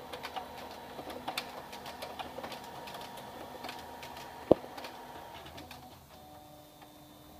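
HP Color LaserJet Pro MFP M176n laser printer initializing at power-on: its mechanism runs with a steady whir and scattered clicks, and there is a sharp click about four and a half seconds in. The running stops about six seconds in, leaving a fainter hum.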